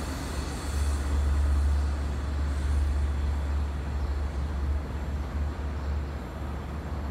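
Long Island Rail Road bilevel passenger train pulling away around a curve, its low rumble and wheel noise on the rails slowly fading.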